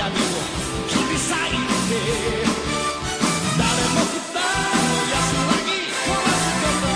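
Rock song with a Chinese vocal singing a line about this month's salary, the rent and the children's education fees, over a full band.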